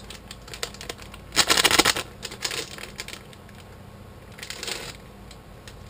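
Plastic snack wrapper being torn open and crinkled by hand, loudest about a second and a half in, with another burst of crinkling past four seconds.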